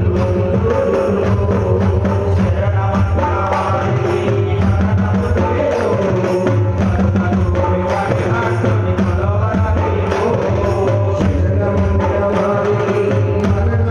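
Ayyappa devotional bhajan music: a gliding melody over a steady beat of hand drums such as tabla.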